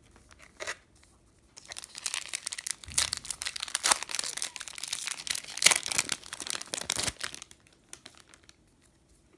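Foil booster-pack wrapper crinkling and tearing as it is pulled open by hand: a dense run of sharp crackles lasting about five and a half seconds, dying away to a few faint ticks near the end.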